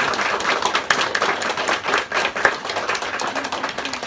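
A small audience applauding, many hands clapping in quick irregular claps.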